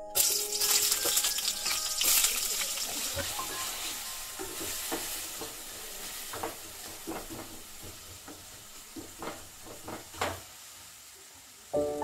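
Sliced vegetables frying in hot oil in a steel kadai: a loud sizzle starts suddenly and slowly dies down. Through the middle, a wooden spatula stirs them, giving a series of short scrapes and knocks against the pan.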